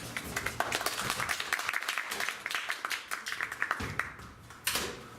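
Audience applauding, the clapping thinning out and dying away about four seconds in, with one louder knock near the end.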